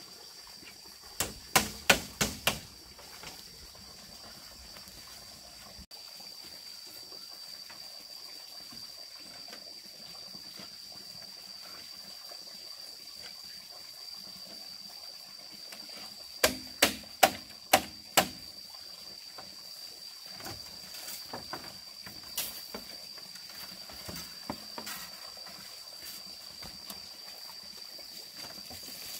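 Two runs of five sharp knocks, about three a second, one near the start and one about halfway through, with a few fainter knocks later, over a steady high-pitched insect drone.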